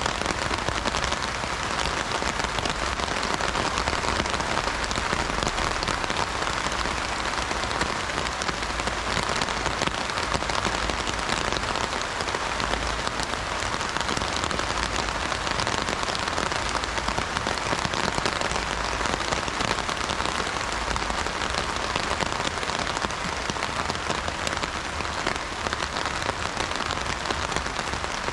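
Steady heavy rain drumming on an umbrella canopy, a dense patter of drops without thunder.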